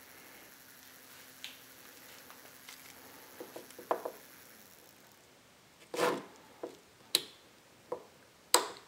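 The gearmotor and its speed controller run with a faint steady hum that stops about five seconds in. Then come several sharp clicks and knocks, the loudest about six seconds in and near the end, as the speed controller's knob and direction switch are worked by hand.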